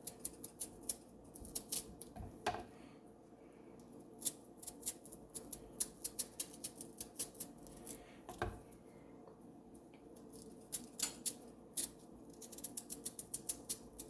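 Yellow yam being peeled: many short, crisp cutting sounds of a blade through the tough skin, in irregular runs that come faster near the end.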